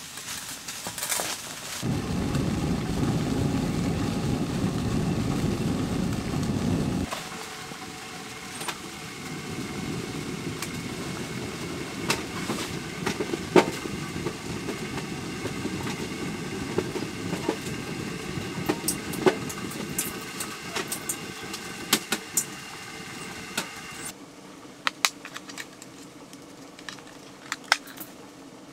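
A wood-stove fire burning, with scattered crackles and pops over a steady rush. It is preceded by a few seconds of louder low rushing noise, and near the end it gives way to quieter clicks of small objects being handled.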